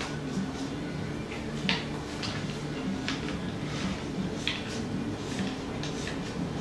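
One-handed trigger bar clamps clicking as they are squeezed tight: a few separate sharp clicks, about half a second to a second and a half apart.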